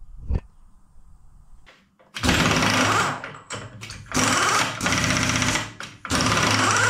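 HBM 45 Profi milling machine running in short bursts of about a second each, with a few quiet handling sounds before the first burst, as the rebuilt drive is tried out.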